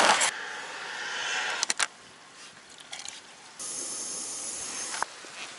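Jetboil gas stove hissing as its water comes to the boil, with plastic packaging crinkling at the start and a few sharp clicks. The hiss cuts off suddenly with a click near the end.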